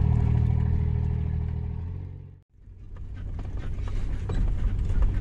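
Off-road 4x4's engine running steadily while driving slowly, fading out about two and a half seconds in. After a brief gap the driving noise returns, rougher, with scattered rattling clicks, and grows louder.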